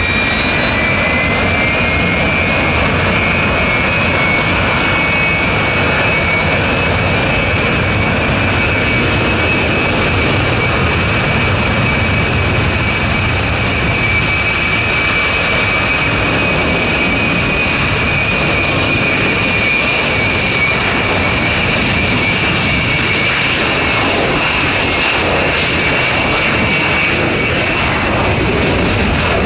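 Jet airliner engines running loud and steady, a broad roar with a high turbine whine that rises slightly over the first couple of seconds and then holds.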